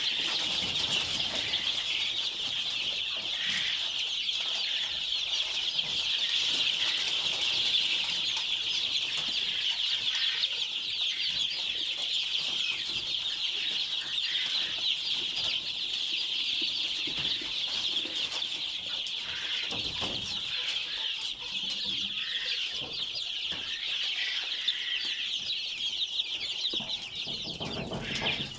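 A large flock of chickens calling, many high-pitched calls overlapping into a continuous chorus.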